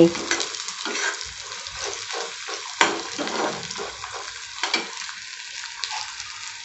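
Chopped onions sizzling in hot sesame oil in a kadai while being sautéed toward golden brown, with a steady frying hiss. A metal spatula scrapes and stirs them against the pan every so often, loudest about three seconds in and again near five seconds.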